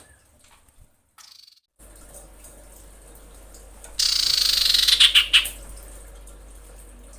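Common iora calls from a lure recording. About four seconds in there is a loud, harsh, hissing burst of about a second and a half, with a few short high notes in it.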